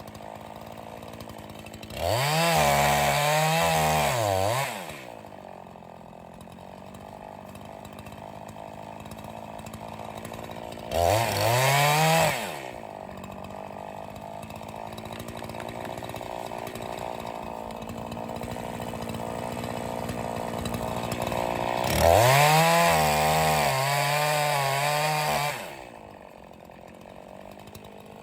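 Echo CS501P two-stroke chainsaw idling, throttled up three times for a few seconds each (near the start, in the middle and near the end), its pitch wavering at full revs.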